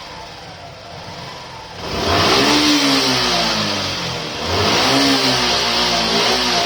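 Suzuki Gixxer SF 155's single-cylinder four-stroke engine idling, then revved hard about two seconds in. The pitch climbs and falls back, and it is revved again about four and a half seconds in.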